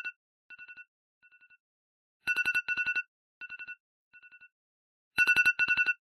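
An iPhone-style telephone ringtone: rapid trilling rings on two pitches, coming in loud pairs, each pair followed by softer fading repeats like an echo. The pattern starts over about every three seconds, twice in this stretch.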